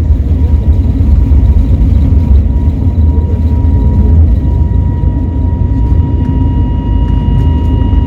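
Jet airliner cabin noise: the engines run with a loud, steady, deep rumble and a steady high whine. More whine tones join about five seconds in.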